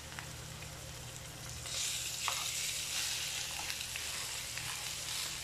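Cubed raw pork tipped from a glass bowl into hot oil with sautéed garlic, ginger and onion in a stainless steel pan, frying with a sizzle that grows louder about two seconds in as the meat hits the oil. A few light clicks of the spoon against the bowl and pan.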